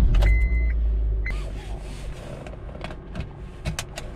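A car's warning chime beeping, the last beeps in the first second and a half, over a low rumble. Then rustling and a few sharp clicks as the driver's seatbelt is pulled across and buckled.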